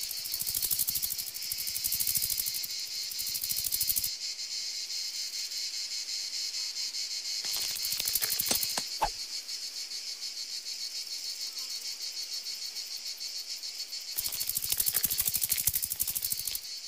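Insects chirring in a steady, rapid, high-pitched trill, softer through the middle. A few sharp clicks sound about halfway through.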